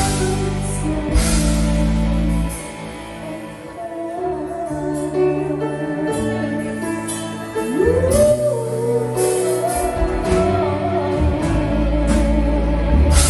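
A song playing: a voice singing a melody over instrumental backing with a steady bass line. About eight seconds in, a sung note slides up and is held.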